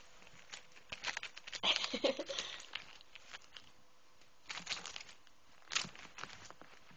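Kitten clawing and biting at a striped paper tube toy: scratchy crinkling and rustling in bursts, busiest in the first couple of seconds, again about four and a half seconds in and once more near six seconds.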